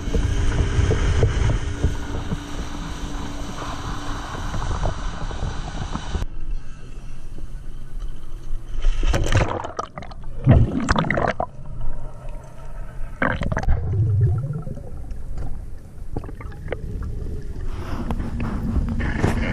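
A motorboat running at speed with wind and spray over the engine for about six seconds, then it cuts abruptly to muffled underwater sound with several surges of bubbling and gurgling.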